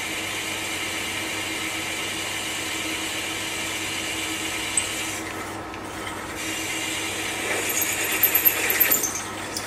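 Machine-driven 8mm HSS drill bit cutting into a metal rocker-arm casting, drilling the tapping hole for a 3/8 UNC thread, with the machine's steady running hum under the cutting noise. The cutting eases briefly just past halfway, then grows louder and rougher near the end.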